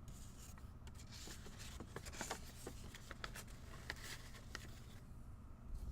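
Faint handling of trading cards: cards sliding and rustling as a pack is flipped through, with a scatter of small clicks in the middle seconds.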